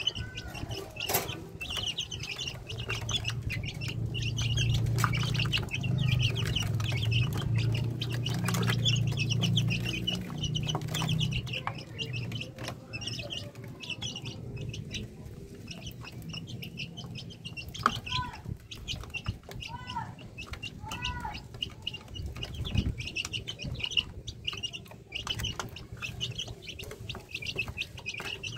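Native village-chicken chicks peeping in a steady stream of short high chirps, with scattered light knocks. A low hum is loudest for several seconds early on, and a few lower, arching calls come about two-thirds of the way through.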